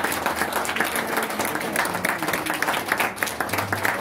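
Wedding guests applauding, many hands clapping in a dense, steady patter.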